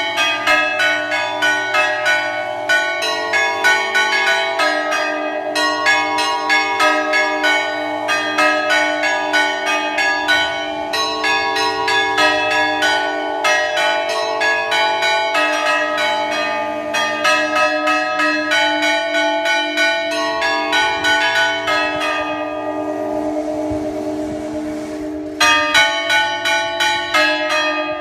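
A monastery belfry of 462 bells rung in a fast continuous peal: high bells struck several times a second over steadily humming lower bells. About three seconds before the end the quick strikes thin out, then the full peal comes back in suddenly.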